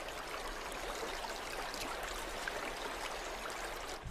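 Steady rush of running water from a creek.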